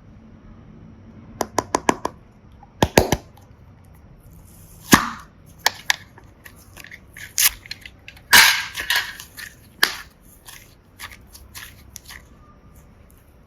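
Slime being pressed and stretched by hand, giving sharp pops and crackling snaps at irregular intervals: a quick flurry early, then single louder pops, the loudest about halfway through.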